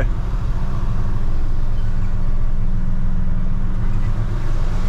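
Mack Anthem semi tractor's diesel engine running steadily at low revs, a deep even hum heard from inside the cab.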